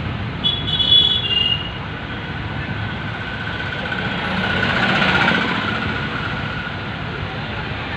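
Street traffic and road noise heard from inside a moving vehicle, with a brief high-pitched two-note tone in the first two seconds. The noise swells around the middle as a bus passes close alongside.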